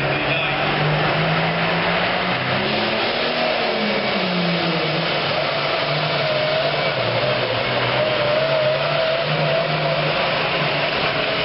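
Super Farm pulling tractor's turbocharged diesel engine running hard at high revs under load, a loud steady drone whose pitch rises and falls about three to four seconds in and wavers near the end.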